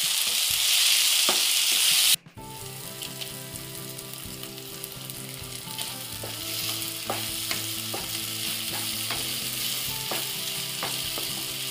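Chopped onions and tomatoes sizzling in oil in a non-stick frying pan, with a wooden spatula scraping and stirring them. About two seconds in the sound cuts abruptly to a quieter sizzle with stirring strokes, under several steady low held tones.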